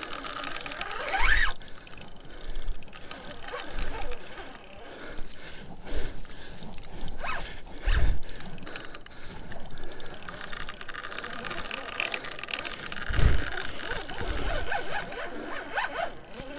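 Shimano Stella spinning reel working under load from a hooked white sturgeon: the reel's gears and drag run as line is fought, with low knocks from handling the rod about a second in, at eight seconds and near thirteen seconds.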